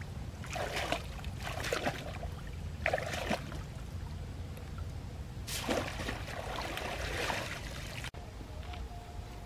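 Shallow muddy water splashing and trickling as a woven bamboo basket is scooped through it and lifted, with water running out through the weave. There are a few short splashes, then a longer one about halfway through.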